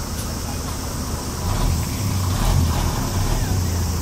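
Street traffic going past: a city bus and cars, with a steady low engine rumble and road noise.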